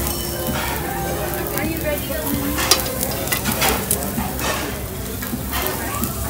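Steak and shrimp sizzling on a Korean barbecue tabletop grill, a steady frying hiss, with a few sharp clicks from metal tongs on the grill as a shrimp is picked up and moved.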